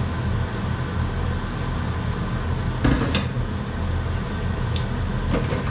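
Sauce simmering in a saucepan on a gas hob, with a steady low hum underneath. Tongs knock against the pan a couple of times about three seconds in and again near the end.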